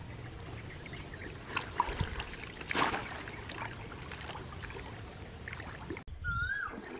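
Shallow water splashing and sloshing around a person wading and handling water plants, with small drips throughout and one louder splash about three seconds in. Near the end the sound cuts off abruptly, and a brief whistle that rises and falls follows.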